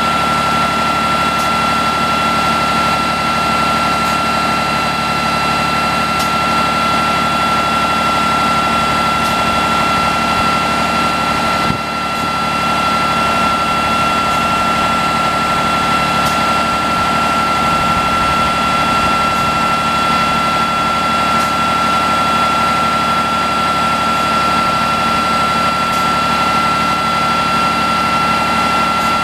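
Diesel engine of a Unimog FLU419 SEE running steadily at a constant speed, with a steady high whine over it. The sound dips briefly about twelve seconds in.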